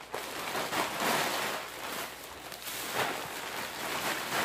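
Plastic packaging rustling and crinkling as bagged snack multipacks and groceries are handled, in irregular swells of noise.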